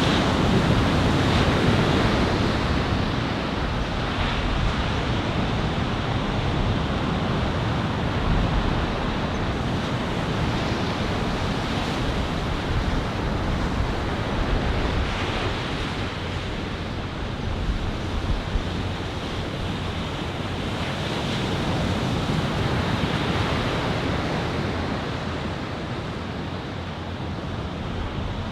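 Ocean surf from a building typhoon swell: waves breaking and washing in a continuous roar that swells and eases every few seconds, with wind on the microphone.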